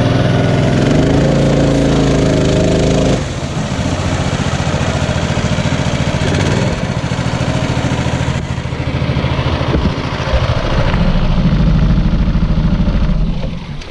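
A 212cc Predator single-cylinder four-stroke engine drives a Mudskipper longtail mud motor under way, with water splashing around the stern. The engine note drops about three seconds in, comes back up louder near the end, then falls off just before the end.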